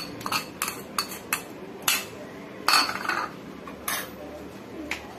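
A spoon clinking against a small ceramic bowl as spice is tapped out of it onto raw chicken: about seven short, sharp clinks and knocks spread across a few seconds, one of them a little longer, from crockery being handled and set back down.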